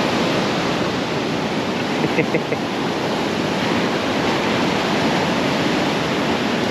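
Surf breaking and washing up a sand beach: a steady rush of white water.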